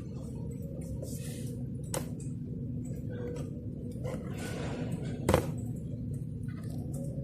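Mini electric space heater's fan motor running with a steady hum, with scattered light clicks and a sharper click about five seconds in.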